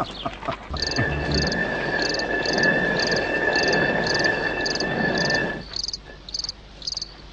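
Night ambience of crickets chirping in regular pulses about twice a second over a steady high insect trill. A rough grinding noise runs underneath and stops about five and a half seconds in.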